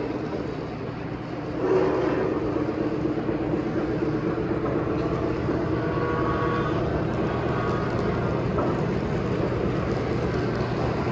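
Three-rail model trains running on a layout: a steady rumble of wheels and motors on the track, getting louder about two seconds in.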